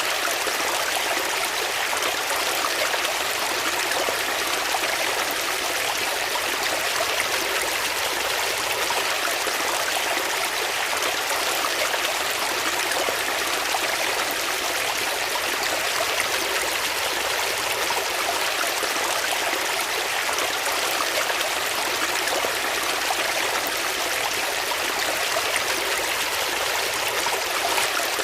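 Water flowing in a stream: a steady, even rushing and babbling that does not change.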